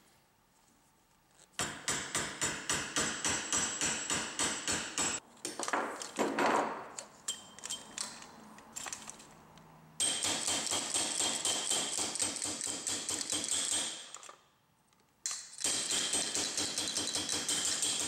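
Claw hammer tapping rapidly on an aluminium telescoping suitcase-handle tube held in a vise. The metal rings under several quick strikes a second, in runs of a few seconds with short breaks between.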